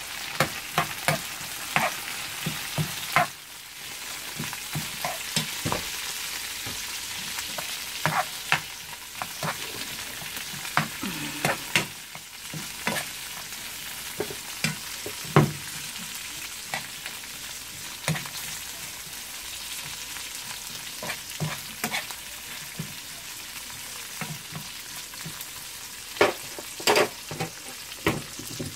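Oil sizzling steadily under green peppers and chopped nuts stir-frying in a frying pan. Irregular clacks and scrapes come from a plastic spoon stirring against the pan.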